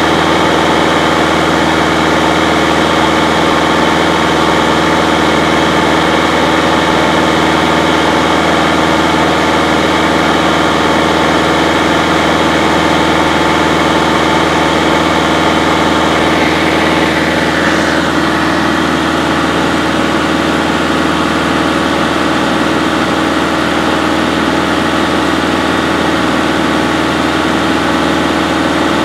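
Light aircraft's engine and propeller droning steadily, heard from inside the cabin in cruise flight.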